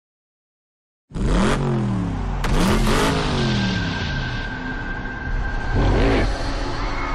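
Race car engines starting suddenly about a second in, as cars speed past one after another, the engine pitch swooping up and down with each pass, three times, over a steady roar of a stadium crowd.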